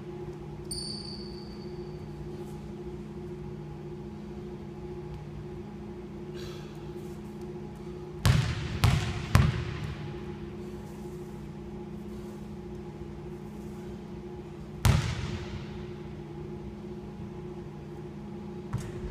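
Basketball bouncing on a hardwood gym floor: three quick dribbles about eight seconds in and one more bounce later, each echoing in the large hall. A steady low hum runs underneath.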